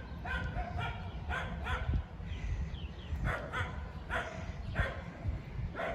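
A dog barking repeatedly: about nine short barks in small groups.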